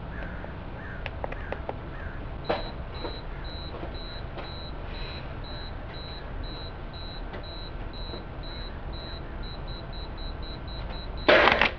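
Camera self-timer beeping about twice a second, then switching to rapid beeps over the last second and a half of the countdown. Right after the beeps stop, a loud spraying burst as a mouthful of coffee is spat at the wall.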